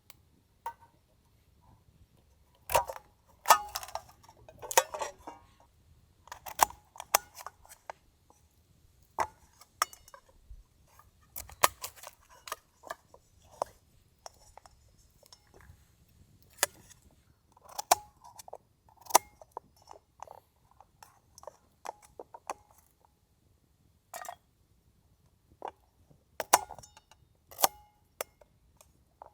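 Irregular clicks, taps and light clinks of camp cooking gear and food being handled, some with a short ringing note, several a second at times with short pauses between.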